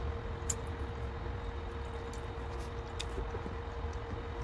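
Steady low background rumble with a faint constant hum, and two brief clicks, about half a second in and again about three seconds in.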